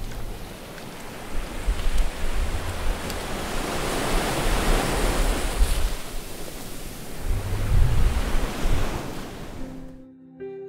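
Ocean waves washing on a shore: a rushing surge that builds to a peak midway, with deep rumbling, then fades out near the end as a few soft notes of music begin.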